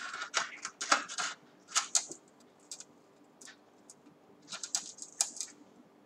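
Irregular small clicks, taps and short scrapes of objects being handled on a tabletop, in three clusters: the first second and a half, around two seconds, and around five seconds.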